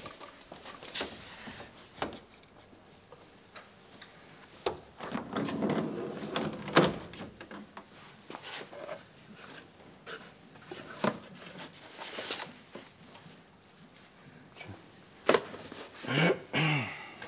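A van's rear door being opened and things handled in the back: scattered clicks and knocks, the loudest about seven seconds in.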